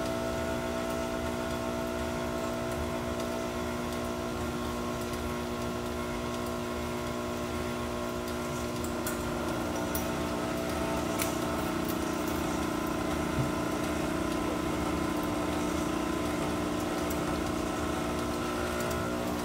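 Electric stand mixer running steadily, its motor humming as the beater mixes cake batter in a steel bowl, with a few light clicks about halfway through.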